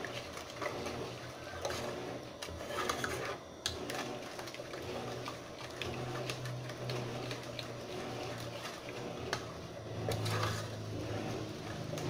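A long spoon stirring a thick liquid soap mixture in a pot, with repeated irregular scrapes and light knocks against the pot. A low steady hum sits behind it.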